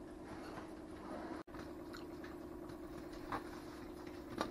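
A steady low hum over faint room noise, which drops out briefly about a second and a half in. Later come a couple of soft clicks as a fried onion ring is picked up off a metal baking pan.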